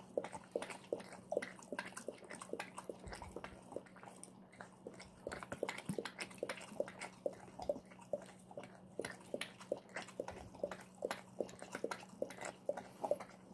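A brindle pit bull lapping water from the mouth of a plastic water bottle: a quick run of small wet licks, about three a second.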